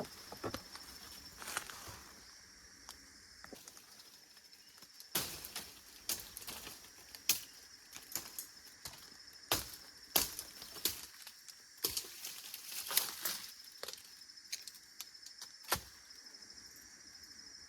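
A cricket trilling steadily on one high note, with irregular sharp clicks and knocks over it, most of them in the middle stretch.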